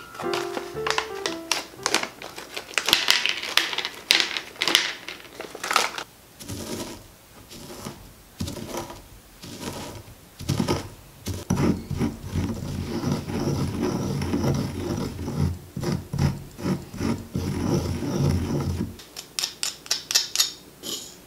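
Crinkling of a snack bag of freeze-dried strawberry crisps as it is handled and opened. Then a stone pestle grinding and crushing the crisp strawberries to powder in a stone mortar, a dense run of grinding strokes, followed near the end by a few sharp taps of stone on stone.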